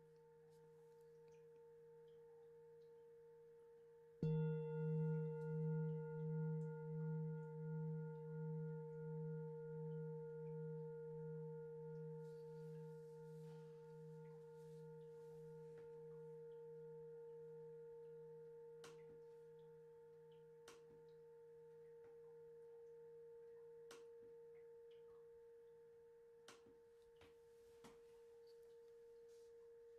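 A singing bowl struck once about four seconds in, ringing with a low hum and several higher overtones that swell and dip about once a second as the tone slowly fades. Before the strike, the fainter ringing of the previous stroke is still dying away.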